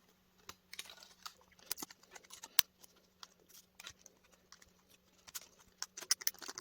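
Irregular sharp clicks and small taps from hand tools working small metal, plastic and glass parts apart, with the louder clicks near the middle and toward the end. A faint steady hum runs underneath.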